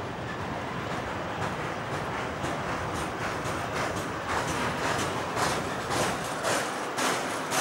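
Freight train of container and tank-container wagons rolling past, its wheels clattering over rail joints about twice a second, the clatter growing louder over the second half.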